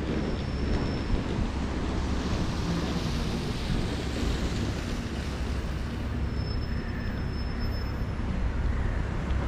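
Steady street traffic noise, with wind rumbling on the microphone.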